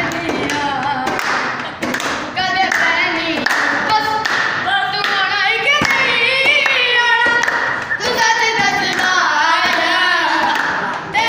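Group of boys singing a Punjabi song together, keeping time with hand beats on a wooden desk top and clapping.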